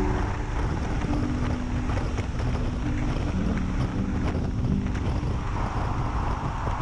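Motorcycle riding at about 70 mph, the rush of wind on the microphone over the engine and road noise. About five and a half seconds in, as the bike enters a road tunnel, the sound takes on more hiss.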